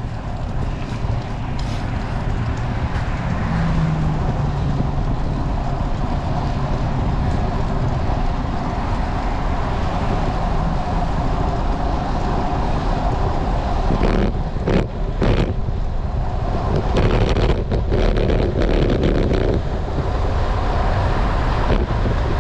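Steady wind and road noise on a moving road bike's action camera, with car traffic on the road. A few short knocks come about two-thirds of the way in.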